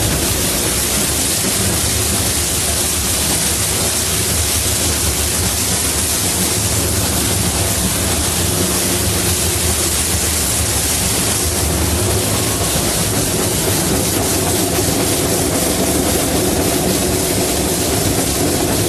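Steady running noise heard inside the cab of a moving steam locomotive: a continuous loud rush of fire, steam and wheels on rail, with a low hum under it.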